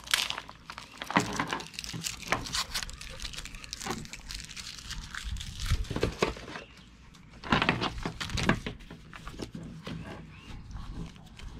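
Plastic wrap crinkling, with paper and cardboard rustling, in irregular bursts as a strap is unwrapped and papers are pulled out of a box.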